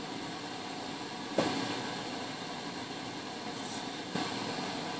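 Steady kitchen background noise, with a single sharp knock about one and a half seconds in and a fainter one near the end.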